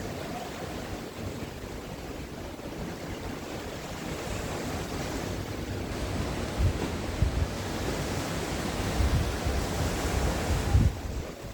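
Sea waves breaking and washing on a shore, a continuous surf wash that swells from about four seconds in, with low rumbles in the second half before dropping off suddenly near the end.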